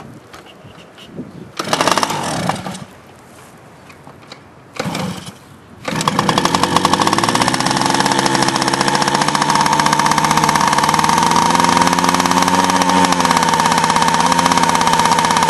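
1986 Yamaha BW80's two-stroke single with a freshly rebuilt big-bore top end being kick-started. A couple of kicks don't catch, then about six seconds in it fires and keeps running steadily, its pitch wavering a little. The owner thinks it may still need a new carburettor.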